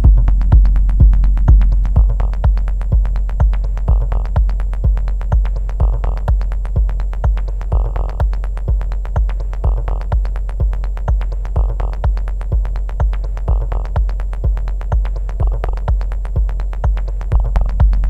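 Techno played live on a Korg Volca Sample drum machine: a steady kick drum about two beats a second over a deep bass drone, with a noisy hit about every two seconds. The mix dips quieter through the middle and comes back up near the end as its knobs are twisted.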